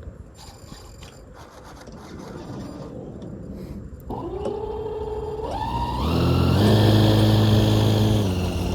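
RC aerobatic model plane's motor and propeller throttling up: a whine climbs in steps about four seconds in. From about six seconds it settles into a loud, steady run at high power.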